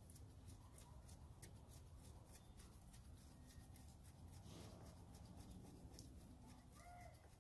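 Near silence: faint clicking and rubbing of gloved hands working on fittings in an engine bay, over a low steady background rumble.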